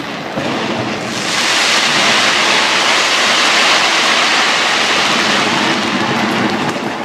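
Dense crackling of fireworks bursting, a steady surf-like hiss that swells about a second in and holds.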